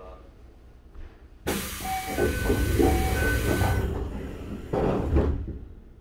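A sudden loud hiss of compressed air aboard a Toei 5300-series train car, starting about a second and a half in and lasting a little over two seconds, with short beeps and a low rumble under it. A second, shorter burst follows about a second later, then it dies away.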